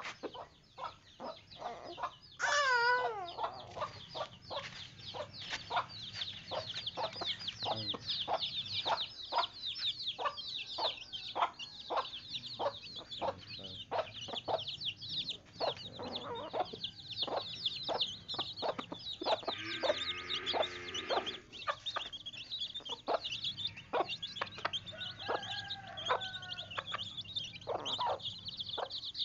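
A flock of chickens clucking, over a dense high chatter of peeping and many short sharp ticks. There is a longer wavering call about two and a half seconds in and another call about twenty seconds in.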